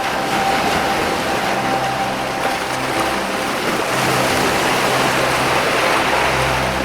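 Ocean waves breaking and washing over rocks, a steady rush of surf. Soft background music with long held notes sits underneath.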